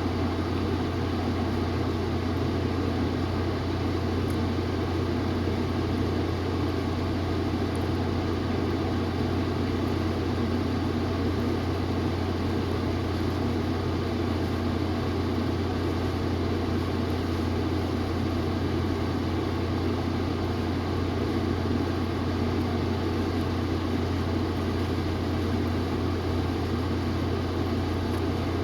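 Steady low mechanical hum with a constant rushing noise over it, from a machine running without change.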